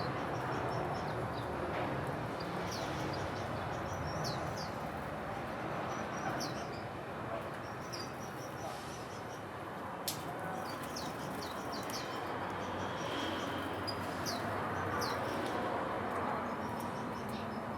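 Small birds chirping again and again, each chirp a short high note falling in pitch, over a steady background hiss. One sharp click about ten seconds in.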